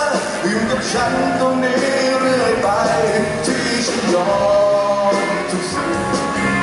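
Live pop-rock band playing: a male vocalist singing through a microphone over electric guitar and drums.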